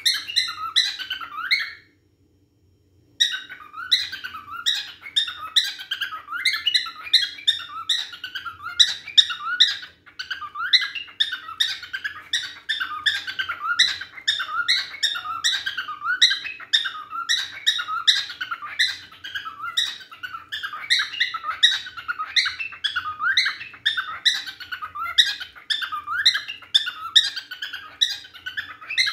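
A cockatiel singing: a rapid, continuous warble of short whistled chirps rising and falling in pitch. It cuts out briefly about two seconds in and then carries on.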